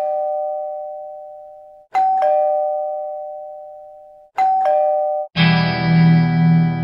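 Doorbell-style ding-dong chime sounding three times, each a high note followed by a lower one that rings and fades; the third is cut short about five seconds in by a loud, sustained distorted electric-guitar chord.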